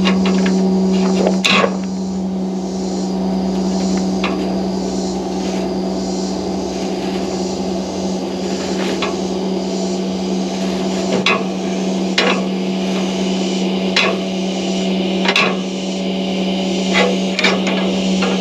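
Tractor engine running steadily under load while pulling a hay baler, a constant deep hum, with sharp clacks from the working machinery every second or two.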